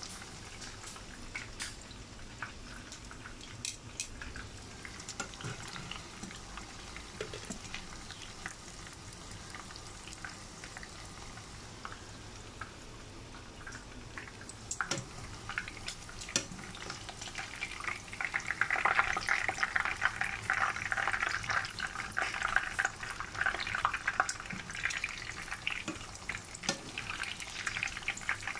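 Battered pork chops deep-frying in oil in a pan: a steady crackling sizzle with scattered sharp pops. The sizzle grows noticeably louder and denser about two-thirds of the way through and stays that way.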